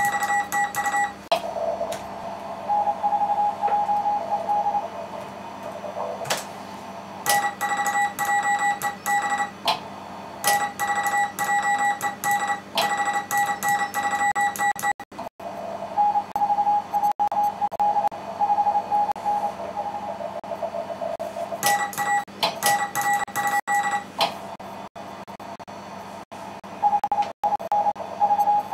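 Morse code (CW) on an amateur radio station during a contest exchange: rapidly keyed beeping tones, a higher tone and a slightly lower tone taking turns, over steady receiver hiss.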